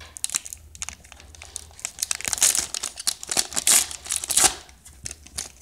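A Topps trading-card pack's plastic wrapper crinkling in irregular bursts as gloved hands open it and handle it, loudest in the second half.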